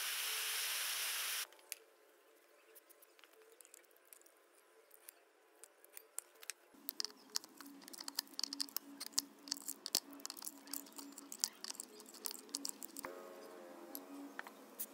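Gas torch flame hissing steadily against the aluminium housing of a Makita 4100NB cutter, cut off suddenly about a second and a half in. Then many sharp metallic clicks and creaks as locking pliers grip and twist a seized broken screw, heated to free it, out of the housing, thickest in the second half.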